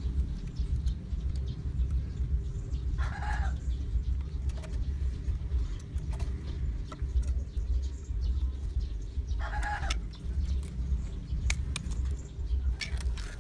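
Two short pitched animal calls, about six seconds apart, over a steady low rumble, with a few light clicks near the end.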